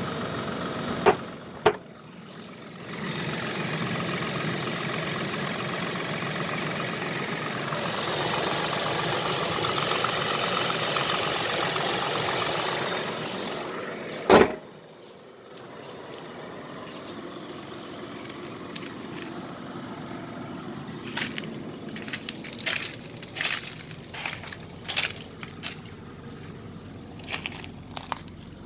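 Tata Altroz engine running, recorded as a noise that the owner suspects may be abnormal after 10,000 km without a service. The engine sound grows louder from about 3 s and steps up again near 8 s, then drops off after a sharp knock about 14 s in. Two sharp knocks come about a second in, and irregular clicks come near the end.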